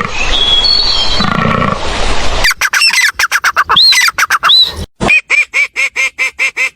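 A bird giving rapid, evenly repeated honking calls, about five a second, after a couple of seconds of noisy hiss.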